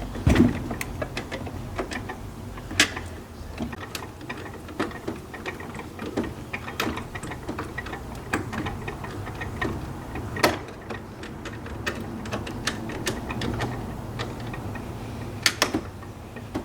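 Hand screwdriver driving screws back into a vending machine's metal fittings: a run of irregular small clicks and ticks, with a few sharper clinks.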